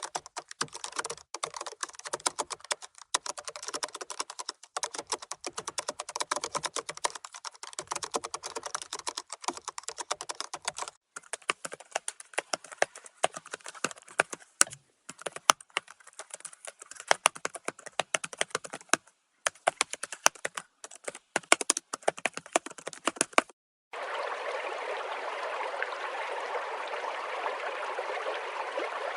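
Rapid typing on a computer keyboard, dense clicking with a few short pauses, stopping about 23 seconds in; a steady sound of running water takes over for the last few seconds.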